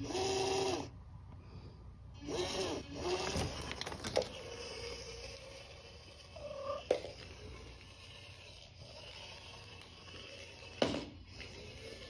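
Maine Coon cat meowing: a long, even call right at the start and a shorter one that rises and falls about two seconds later. Then rustling with a few sharp clicks and taps, the loudest click near the end.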